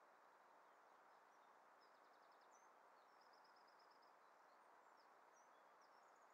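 Near silence with a steady hiss, over which a distant small songbird gives faint high chirps and two quick trills of repeated notes, one about two seconds in and a longer one just after the three-second mark.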